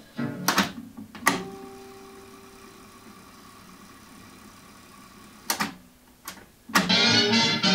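Sharp RT-2251 two-motor cassette deck's transport being worked: the music cuts off, keys click and the mechanism clunks, and the tape winds with a faint steady whir for about four seconds. More clicks and clunks follow, and music starts playing again near the end.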